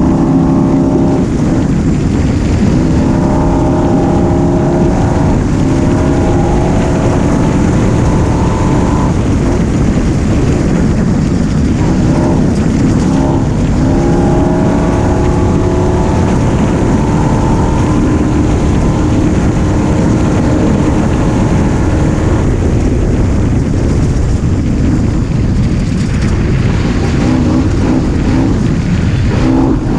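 Engine of a small vehicle running hard on an on-board camera. Its pitch climbs and drops back several times as it revs up and comes off the throttle, with rushing wind and road noise underneath.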